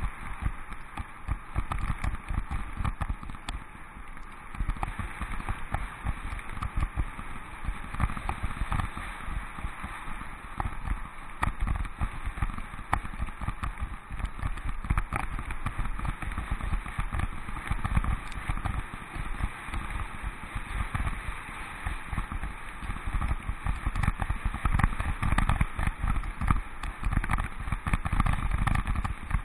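Mountain bike riding on a gravel path: tyres crunching over the gravel, with frequent rattles and knocks as it goes over bumps. A steady low rumble of wind on the microphone runs under it.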